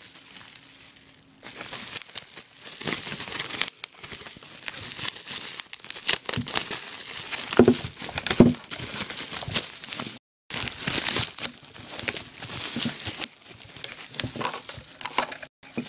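Speaker packaging being handled and pulled open: irregular crinkling and crackling with bits of tearing. The sound drops out completely for a moment about ten seconds in.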